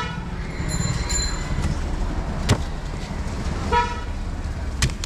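Street traffic rumbling, with a short vehicle horn toot a little under four seconds in. Two sharp knocks stand out, one about halfway through and one near the end.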